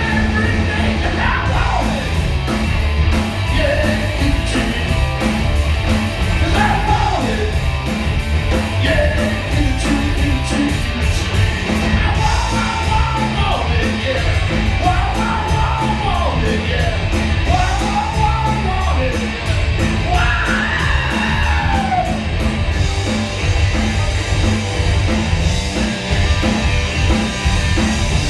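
Live rock band playing: electric guitar, bass guitar and drum kit, with a man singing lead vocals into the microphone.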